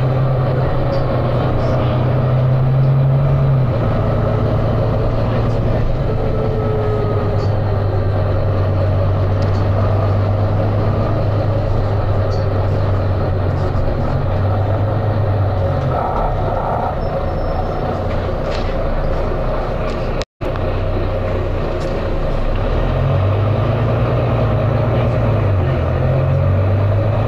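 Volvo B9TL double-decker bus's diesel engine thrashing hard under way. Its note steps down in pitch about four seconds in and shifts again later, and the sound cuts out for an instant about twenty seconds in.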